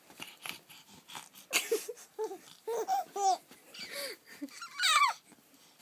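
Five-month-old baby laughing in short bursts of giggles, ending with a loud high squeal about five seconds in.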